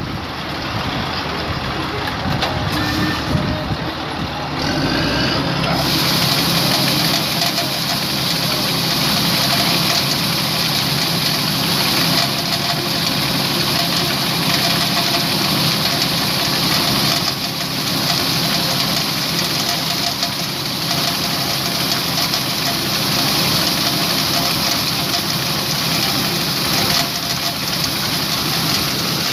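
Combine harvester running steadily while it unloads grain through its auger. The engine hum is joined by a strong, even hiss of machinery and pouring grain from about six seconds in.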